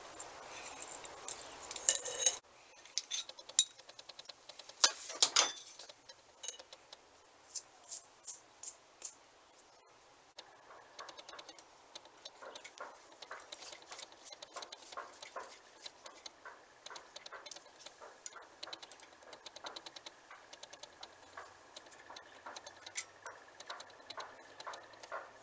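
Light metal clicks and taps of hand tools working on a bench grinder's electric motor parts. About ten seconds in they turn into a quick, even run of small ticks, about three a second.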